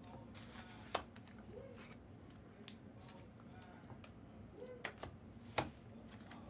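Faint handling of trading cards and their packs: soft rustling and sliding, with a few sharp clicks, about a second in and twice more near the end.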